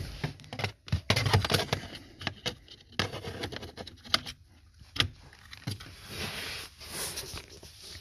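Hard plastic clicks, knocks and rustling as an OBD-II plug on an adapter brick is handled and pushed into the car's OBD port under the dashboard. A quick cluster of knocks comes about a second in, then single clicks and taps every second or so.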